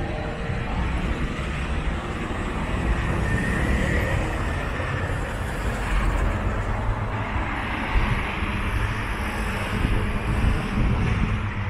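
Street traffic: motor vehicles running and passing, a continuous engine and tyre rumble.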